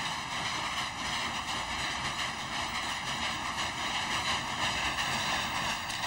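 Steady hissing rush from a heated, steaming dye vat, unbroken and even throughout.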